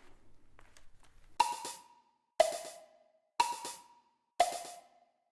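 Clock ticking: four sharp ticks, one a second, starting about a second and a half in. Each tick rings briefly, alternating higher and lower like a tick-tock.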